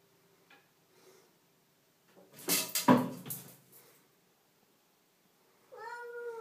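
A loud clatter of several knocks about two and a half seconds in. Then, near the end, a domestic cat meows once in a drawn-out call.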